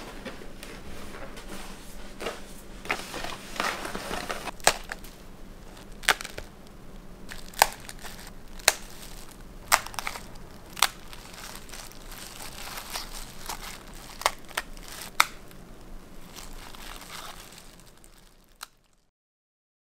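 Crisp brown-rice nurungji chips cracking in sharp, separate snaps, roughly one a second, over a faint steady hum, fading out near the end.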